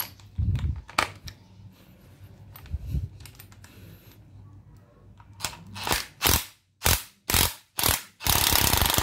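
DeWalt DCF911 brushless cordless 1/2-inch impact wrench run in short trigger blips at low speed, its hammer rattling quickly against a socket extension held by hand: six or seven brief bursts from about five seconds in, then one lasting about a second. Before that, light clicks and knocks of the socket and extension being fitted.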